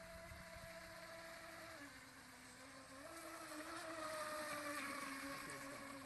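Electric motor and propeller whine of a small fast-electric RC boat running at speed. It grows louder as the boat passes close, about two-thirds of the way through, then drops a little in pitch as the boat moves away.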